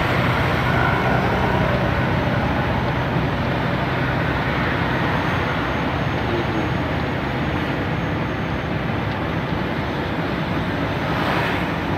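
Steady road and wind noise of a moving vehicle, an even hiss with no distinct events.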